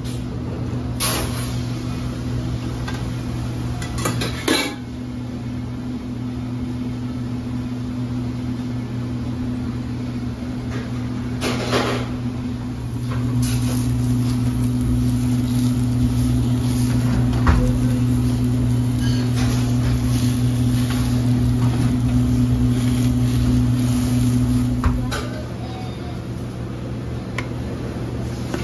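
A steady electric machine hum in a kitchen, which gets louder for about twelve seconds in the middle and then drops back. Dishes and pans clatter a few times over it.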